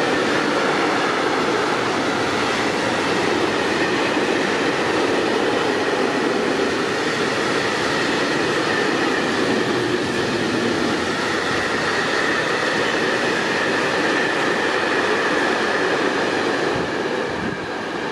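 Freight train of tank wagons rolling past at speed: a steady rumble and clatter of wheels on rail, with a steady high-pitched tone above it. The sound eases off slightly near the end as the last wagon goes by.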